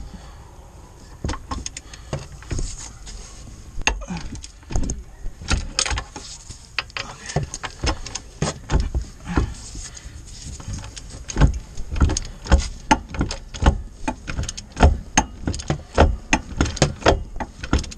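Hand ratchet wrench turning a brake caliper bolt, with metallic clicks and clinks of the tool against the caliper. The clicks are irregular at first, then come in a steady run of about two to three a second over the second half.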